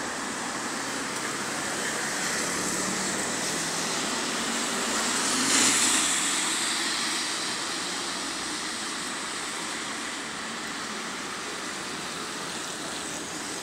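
A car driving past close by, its tyre and engine noise swelling to a peak about six seconds in and then fading away, over steady street noise.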